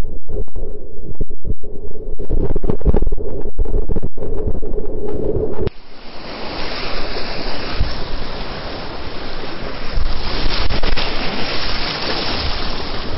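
Whitewater rapids rushing and splashing around a kayak, with water and wind buffeting the camera. For the first half the sound is muffled and keeps cutting in and out; about halfway through it switches abruptly to a steady, full rushing hiss of the rapids.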